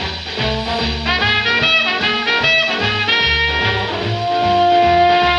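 Early-1950s swing band music played from a 78 rpm shellac record: trumpet, trombone, alto and tenor saxophones in short repeated riffs over piano, bass and drums. Near the end the horns hold one long note.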